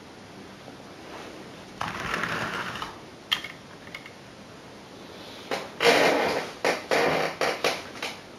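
Handling noises: a rustle about two seconds in, a sharp click, then a quick run of short clattering, scraping bursts over the last three seconds.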